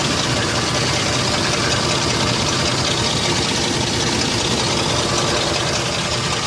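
Lincoln Aviator's 4.6 V8 idling, heard at the exhaust. It makes a loud, steady, rapidly pulsing exhaust sound that the owner takes for a bad exhaust leak or a clogged exhaust component.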